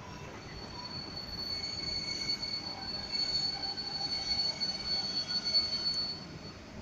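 A train's wheels squealing on the rails: one steady high-pitched squeal that starts just after the beginning, swells over several seconds and stops about a second before the end, over a low rumble.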